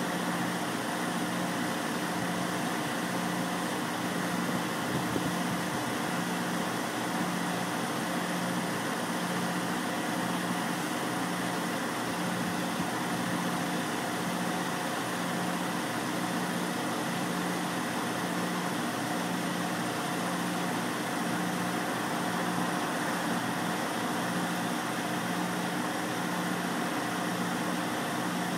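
Diesel semi-truck engine idling steadily, with a low hum that pulses on and off in an even beat about once a second.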